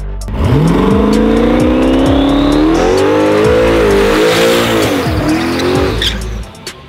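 Turbocharged Pontiac Trans Am doing a burnout: the engine climbs in pitch as it revs up, then holds high and wavers with the spinning rear tires squealing, and the sound drops away about six seconds in. Electronic music with a thumping kick beat plays underneath.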